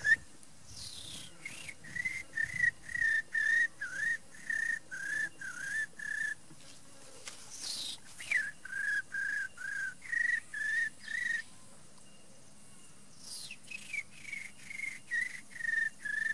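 A man imitating crickets with his mouth: a high, whistle-like chirp repeated about twice a second in three runs with short pauses between them, each run opening with a quick sliding whistle.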